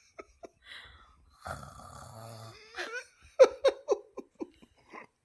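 A person's throaty, buzzing rattle lasting just over a second, an attempt at imitating the Predator's clicking call from the back of the throat. It is followed by a short run of laughter.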